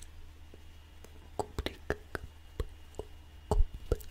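A handful of soft mouth clicks and lip sounds, about six, scattered and close to the microphone, over a steady low hum.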